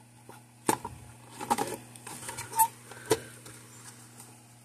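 A circuit board being pushed and test-fitted into the plastic housing of a Gallagher M800 fence energizer, giving a few sharp clicks and knocks of board and plastic: one under a second in, a small cluster about a second and a half in, and another about three seconds in. A low steady hum runs underneath.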